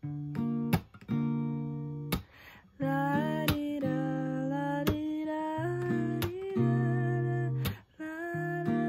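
Acoustic guitar strummed with a sharp percussive hit on the strings about every second and a half. A young woman's voice sings along from about three seconds in.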